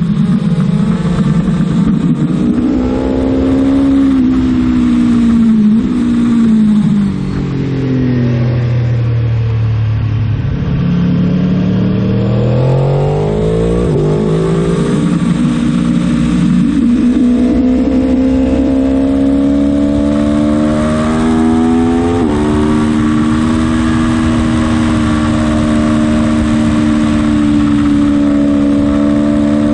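Aprilia Tuono motorcycle engine at full track pace: the engine note drops in pitch as the bike slows and changes down, then climbs again through several gear changes and holds high near the end, with wind rushing past.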